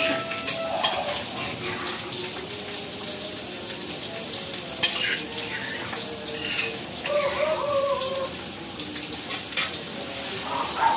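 Oil sizzling in a wok on a gas stove, a steady hiss, with metal cooking utensils clicking and scraping against the pans a few times. A short pitched call sounds in the background about seven seconds in.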